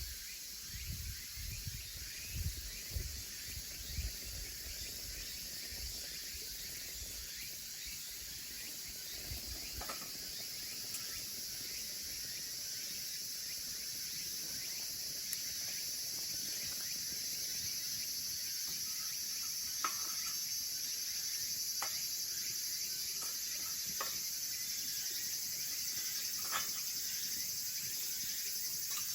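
Firewood catching in a small wood stove: a steady hiss that slowly grows louder through the second half, with a few sharp crackles. Low knocks come in the first few seconds.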